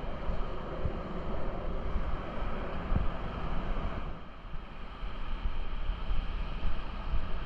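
Wind buffeting the camera microphone in low gusty rumbles over the steady hiss of breaking ocean surf. The surf hiss eases briefly about four seconds in.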